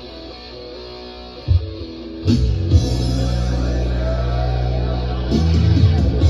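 Rock music played from a record on a Technics SL-BD1 belt-drive turntable: a quieter guitar passage, then the full band with drums comes in loud about two seconds in.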